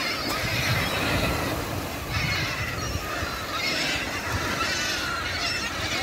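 A large flock of gulls calling, many overlapping, repeated cries, over a steady low rumble of wind and surf.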